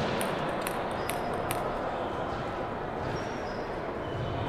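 Table tennis ball bounced four times with light, sharp clicks, a little over two a second, as a player readies his serve. A steady background hiss carries on underneath.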